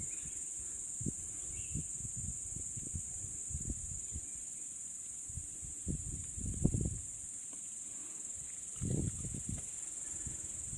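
Insects chirring in trees, one steady high-pitched drone, with a few low, dull thumps scattered through it, the strongest about six and a half and about nine seconds in.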